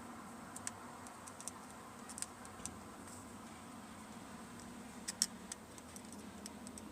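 Small scattered clicks and taps of a mains plug being handled and assembled onto a lawnmower's power cable, with a couple of sharper clicks about five seconds in.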